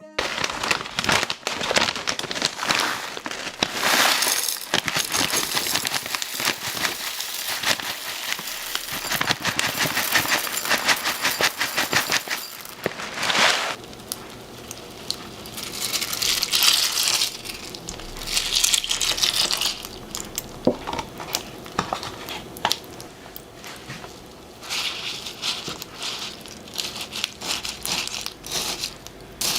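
Close-up kitchen handling sounds: a dense run of small clicks and taps with stretches of rustling, crackling noise.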